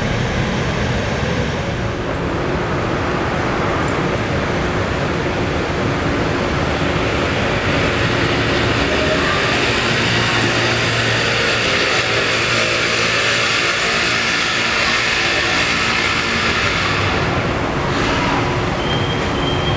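A Line 15 monorail train running along its elevated guideway over steady city traffic noise, a hiss that swells to its loudest about two-thirds of the way through and drops off sharply near the end, where a thin high steady tone comes in.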